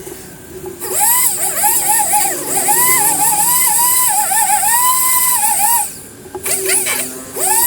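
Electric power sander running with a high whine. Its pitch dips again and again as it is pressed into the body filler and bogs under load. It runs for about five seconds, stops, and starts up again near the end.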